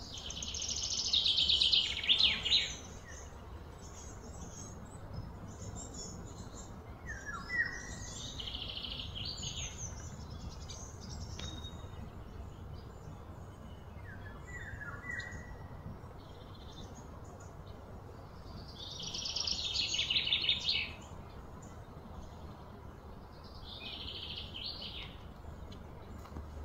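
Outdoor summer wildlife ambience: high buzzing insect calls that swell for a second or two and cut off sharply, four times, with a couple of short falling bird chirps in between, over a steady low background hum.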